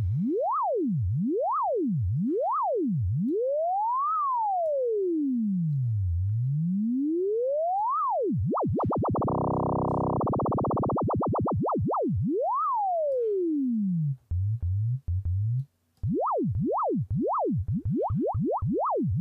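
Software synthesizer playing a pure sine tone whose pitch is swept straight up and down by a triangle-wave LFO, over about four octaves. The sweeps come about once a second, slow down, then speed up so much around the middle that they blur into a buzzing warble. They slow again, and toward the end short notes restart low and sweep faster and faster.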